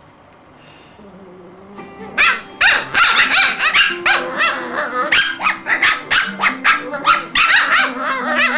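Cavalier King Charles spaniel puppies yapping and yelping in rapid, high-pitched bursts as they play-fight, starting about two seconds in, over background music.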